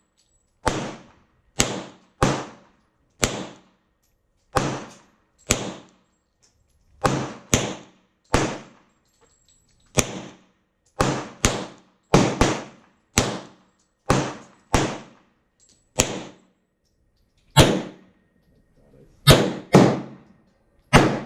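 Gunshots: about two dozen single shots fired at a steady, unhurried pace, some in quick pairs, each a sharp crack with a short echoing tail.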